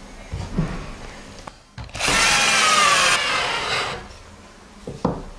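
Cordless drill running into an MDF board for about two seconds, its whine dropping slightly in pitch under load. A few light knocks of the boards being handled come before and after.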